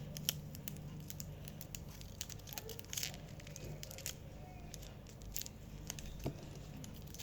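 Sticky tape and cotton being handled: scattered short crinkles and rustles of the tape being pressed and worked around the stuffing.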